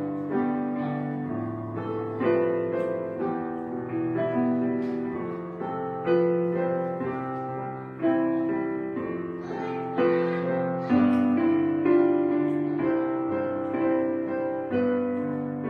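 Background piano music: slow, gentle chords struck every second or two, each fading before the next.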